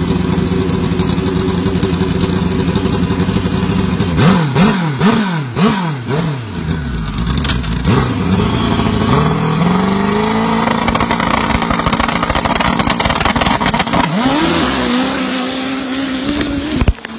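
A big-tyred dirt drag bike's engine idles, is blipped four times in quick succession about four seconds in, then revs up and holds a steady higher pitch, with one more blip near the end. A sudden sharp crack comes just before the end.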